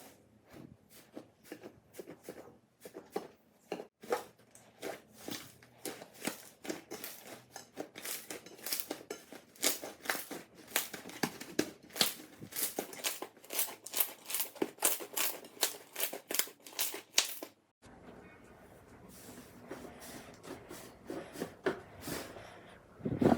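Slime being squeezed and poked, giving a quick run of sharp crackles and pops. It cuts off abruptly about 18 s in, and softer, wetter crackling of slime handling follows.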